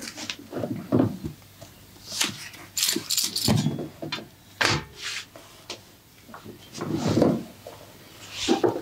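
Hands working on bare skin during a massage: irregular rubbing strokes and pats, some brushing and hissy, some heavier and duller.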